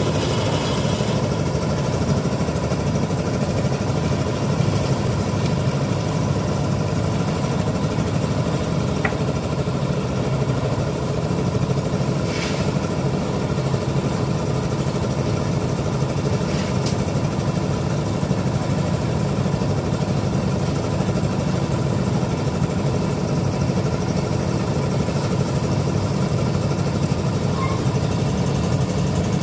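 Engines of a concrete mixer and a builder's hoist running steadily on site, mixing and lifting concrete for a roof slab pour.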